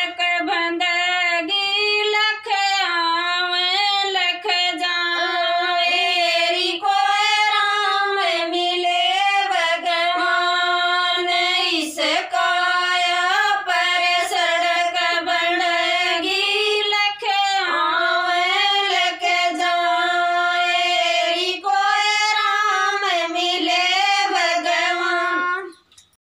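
Women singing a Haryanvi folk bhajan (devotional song) with no instruments, in long held, wavering notes; the singing stops abruptly near the end.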